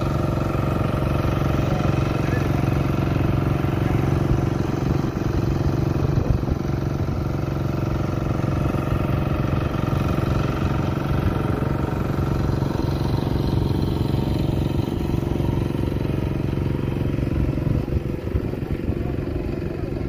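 A motor running steadily, its hum holding one unchanging pitch throughout.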